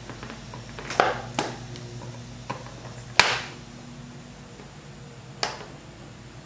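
Plastic wire ties on a dirt bike's plastic side number plate being cut with a hand cutter: four sharp snaps, the loudest about three seconds in.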